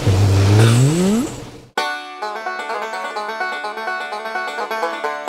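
A noisy sound rising steadily in pitch for about a second and a half, cut off suddenly by bluegrass-style banjo music.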